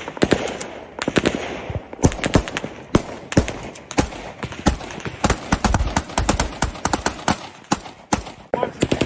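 Small-arms gunfire: many rifle shots in quick, irregular succession, some bunched into short bursts, loud and close.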